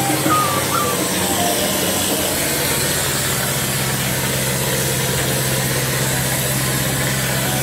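A machine running with a steady low hum and an even hiss.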